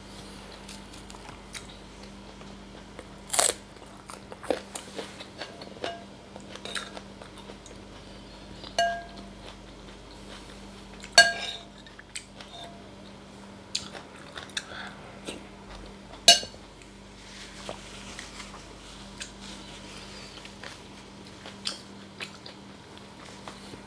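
Metal spoon clinking against a ceramic soup bowl several times, some clinks ringing briefly, with close-miked chewing and mouth sounds of eating soup between them. A faint steady hum runs underneath.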